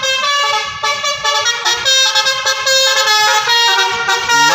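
Bus 'telolet' multi-tone air horn playing a rapid melodic tune, several horn notes sounding together and stepping to new pitches a few times a second.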